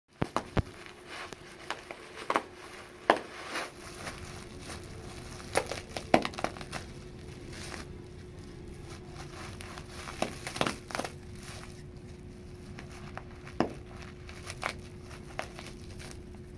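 Bubble wrap crinkling, with irregular sharp pops and crackles that come thick at first and thin out later, over a faint steady hum.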